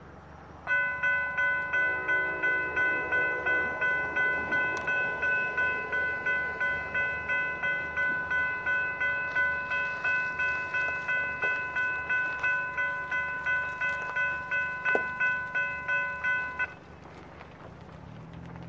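General Signals type-3 electronic crossing bell ringing about two and a half dings a second while the crossing gates lower. It cuts off suddenly near the end, once the gates are down.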